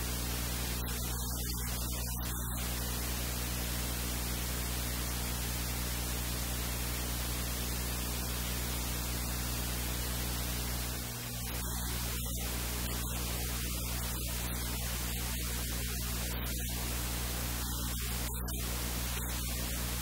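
Steady hiss over a low electrical hum, with no distinct sound event; it dips briefly about eleven seconds in.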